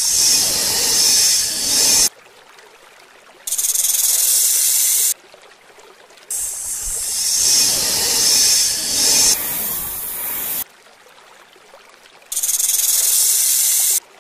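Cobra hissing sound effect: a loud hiss repeated four times, each a second and a half to four seconds long, with short pauses between.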